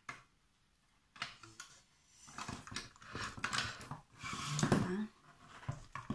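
Hand-cranked stainless-steel pasta machine being turned, its rollers and crank rattling and clicking in a run of short strokes after a single click about a second in. A brief low, slightly rising hum near the end is the loudest sound.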